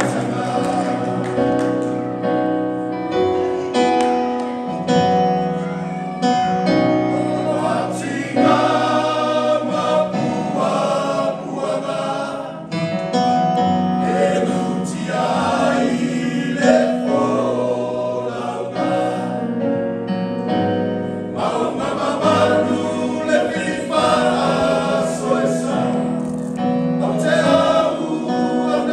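Men's choir singing a Samoan song together, in phrases of long held notes with short breaks between them.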